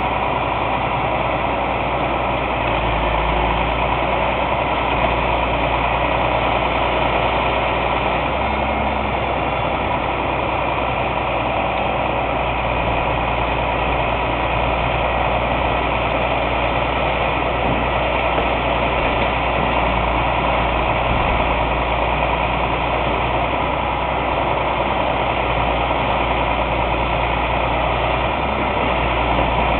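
Heavy truck's engine running steadily, powering its hydraulic grapple crane as the crane lifts and works a van body.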